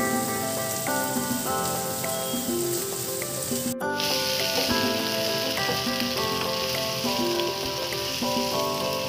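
Diced vegetables sizzling in butter in a frying pan as they are stirred and scooped out with a spatula, over melodic background music. The sizzle grows louder after a brief break near four seconds in.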